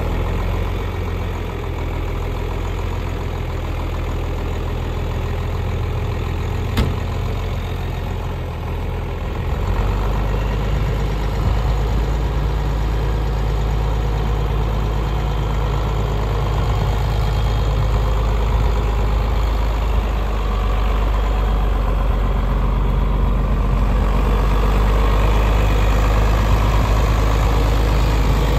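1974 John Deere 4430's turbocharged six-cylinder diesel engine idling steadily with a low drone. A single sharp click comes about seven seconds in, and the drone gets a little louder from about ten seconds in.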